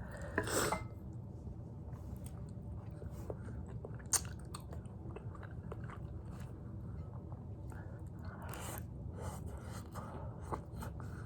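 Close-miked chewing and biting of a spicy tteokbokki meal: scattered wet mouth clicks and smacks, with louder bites near the start, about four seconds in and about eight and a half seconds in.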